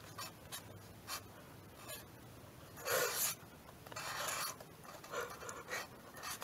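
A black Sharpie marker drawing on a paper sketch pad: a series of short strokes of the felt tip across the paper, the two longest about three and four seconds in.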